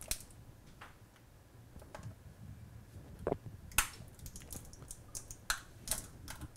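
The snap-on plastic battery cover of a Samsung Galaxy S4 being prised off the back by hand. It gives a string of short, sharp, irregular plastic clicks as its clips let go.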